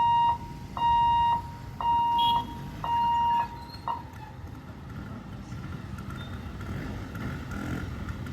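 Electronic warning beeper at a railway level crossing, a steady high beep repeating about once a second, stopping about three and a half seconds in. After it, a rumbling noise grows slowly louder.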